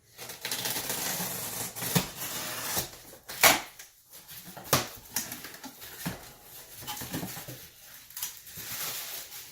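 A shipping package being opened by hand: cardboard and packing material rustling and scraping, with three sharp knocks in the first five seconds, then quieter handling.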